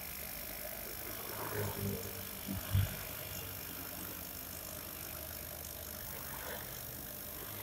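60 W CO2 laser cutter running a cutting job: a steady hum and hiss from the machine as its belt-driven head moves, with a few low thumps between about one and a half and three seconds in, the loudest near three seconds.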